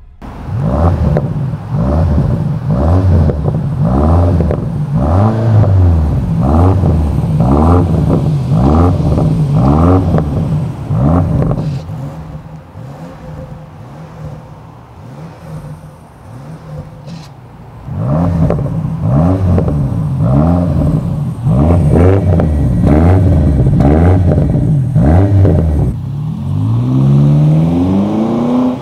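BMW X6 M60i's 4.4-litre twin-turbo V8 revved hard again and again through a custom stainless-steel valved exhaust, a quick run of about ten blips. It then settles to idle, revs in another series of blips, and near the end pulls away with one long rising note as the car accelerates.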